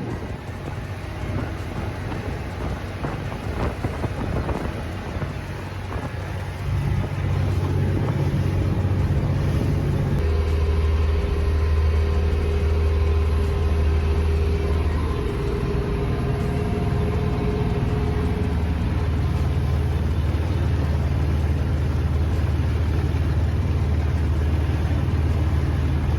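Yamaha DY45G boat's inboard diesel engine running underway: a steady low drone over a rushing noise. The drone grows louder about ten seconds in and then holds steady.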